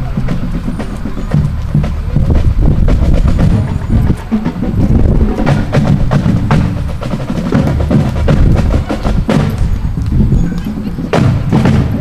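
Marching band drumline playing a street cadence on snare and bass drums while marching.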